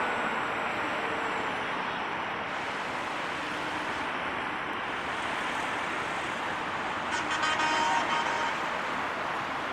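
Steady rolling vehicle noise, with a short horn toot about seven seconds in.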